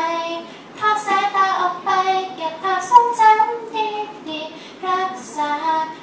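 A woman singing a melody into a handheld microphone, sustaining notes with short breaks between phrases; only her voice is heard, with no instruments.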